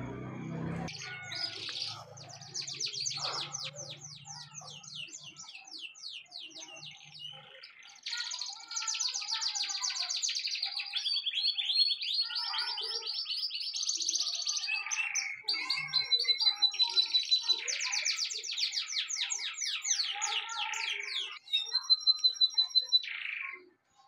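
Domestic canary singing a long song of fast trills and rapid runs of repeated high notes, in several phrases with short breaks between them.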